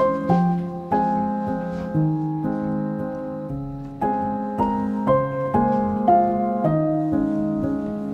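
Background piano music: soft chords and a simple melody, each note struck and fading, moving at a slow, even pace.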